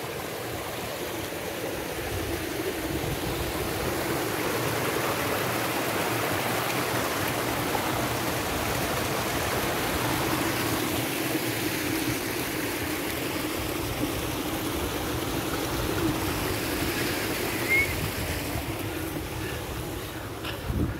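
A small moorland stream running over rocks: a steady rush of water that swells as the little cascade is passed and eases near the end.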